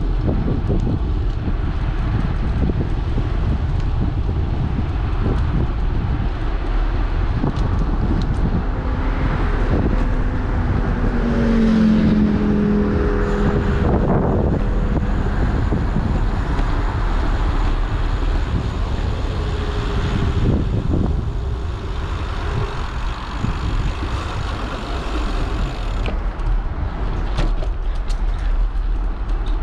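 Steady low wind rumble on the microphone of a moving bicycle. A motor vehicle passes on the road beside the path around twelve to fourteen seconds in, its engine pitch falling as it goes by.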